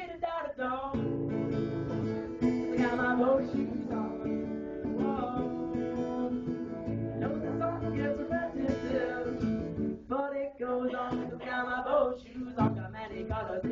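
Song with a strummed acoustic guitar and a voice singing over it.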